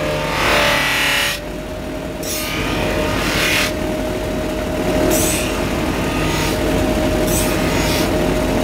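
Bench polishing machine's buffing wheel spinning with a steady motor hum, while a folding knife's steel blade is pressed against it in several short passes, each a hiss. The passes polish the blade to a shine.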